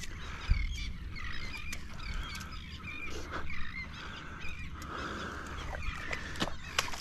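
Many birds calling over and over with short, quick calls, over a steady low rumble, with a few sharp clicks.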